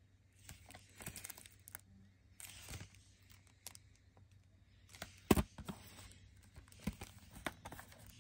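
Shrink-wrapped plastic CD jewel case being handled and turned over: the cellophane wrap crinkles and rustles under the fingers, with small clicks of the case and one sharp knock about five seconds in.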